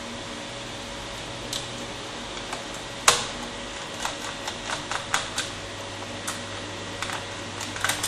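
Sharp clicks and taps of a small screwdriver and fingers on a laptop's plastic bottom case as a screw is worked out: one louder click about three seconds in, then a run of lighter irregular clicks. A steady hum runs underneath.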